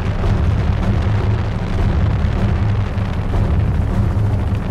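Helicopter in flight heard from its open side door: a loud, steady low rumble of engine and rotor, with a fast even pulsing and wind noise over it.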